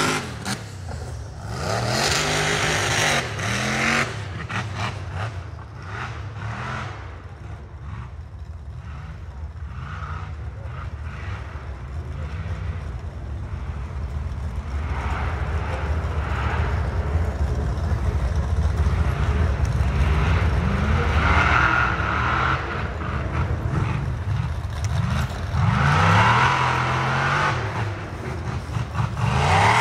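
Off-road rock-racing buggy engines revving hard, the pitch climbing and dropping over and over as they are worked up the hill, loudest near the start and again about three quarters of the way through.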